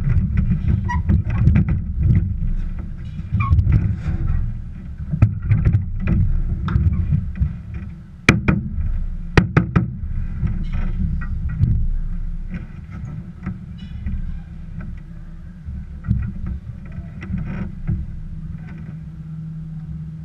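Bobsled being handled at the start: a muffled low rumble and knocking on the sled-mounted camera, with several sharp knocks from the middle onward as gloved hands grip and bump the sled's shell.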